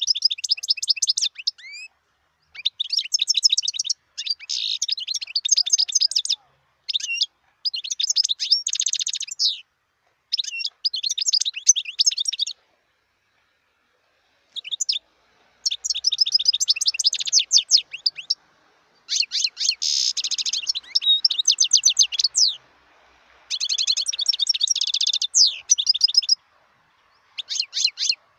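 European goldfinch singing: a high, rapid twittering song of quick trilled notes, delivered in phrases a second or two long with short pauses between them, and a longer pause of about two seconds about halfway through.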